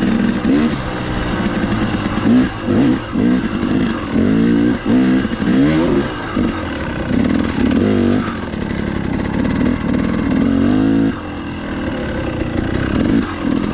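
KTM 300XC-W two-stroke dirt bike engine revving up and down over and over under short bursts of throttle, its pitch rising and falling about once a second. It settles lower for a moment near the end before picking up again.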